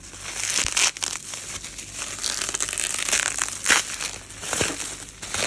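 Plastic bubble wrap crinkling in irregular bursts as hands squeeze and pull at it to open the package.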